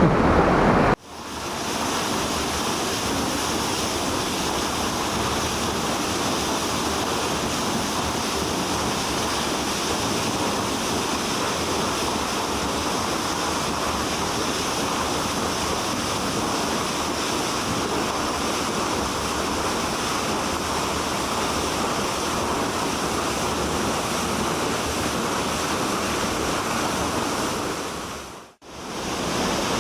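Waterfall rushing in a steady, even roar of falling water, heard close by. Two brief dropouts, about a second in and near the end, break the sound.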